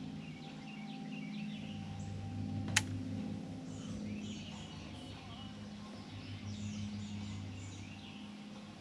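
Small birds chirping and calling over a steady, pulsing low hum, with one sharp click almost three seconds in.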